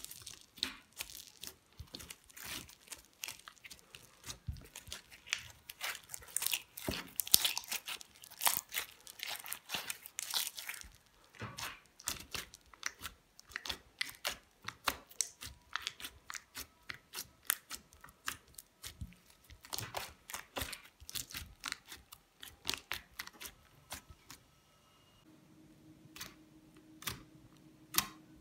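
Slime being squeezed and pressed by hand: a run of small crackles and pops, rapid and dense for the first ten seconds or so, then sparser.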